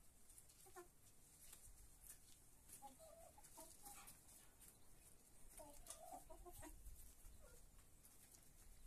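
Domestic hens clucking faintly as they feed, in two short runs of low clucks, about three and about six seconds in.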